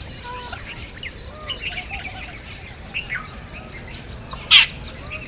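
Jungle babblers calling: many overlapping chirps and squeaky notes, with one short, loud harsh note about four and a half seconds in.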